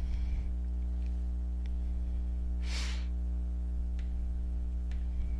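A steady low hum runs underneath. About three seconds in comes one short, noisy breath, with a few faint clicks scattered around it.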